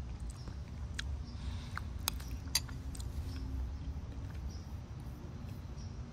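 Chewing and mouth sounds of a person eating a spoonful of soft rehydrated cod mash, with a few sharp clicks about a second and two seconds in, over a steady low rumble.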